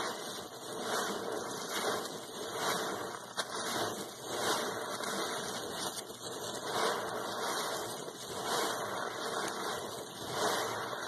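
Sponge squeezed over and over in foamy suds by a rubber-gloved hand, wet squelching with water gushing out in swells about once a second.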